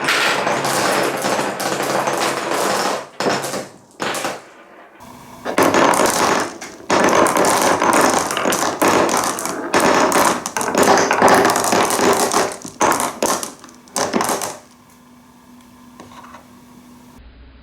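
Marble rolling and clattering along a wooden marble run, dense runs of clicks and knocks as it hits the wooden pieces. It breaks off briefly around three to five seconds in, and goes quiet near the end.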